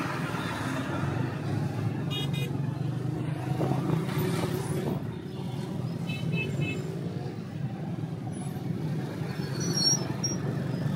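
Busy city road traffic heard from a moving motorbike: a steady engine drone, with short vehicle horn toots about two seconds in and again about six seconds in.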